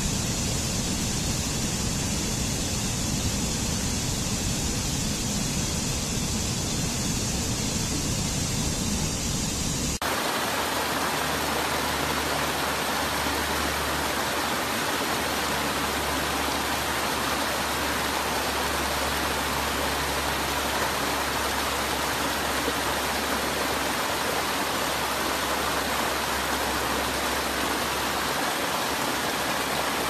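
Mountain stream water rushing and splashing over rocky cascades, a steady unbroken rush. About ten seconds in the sound switches abruptly to a brighter, hissier rush with less low rumble, as from a different cascade.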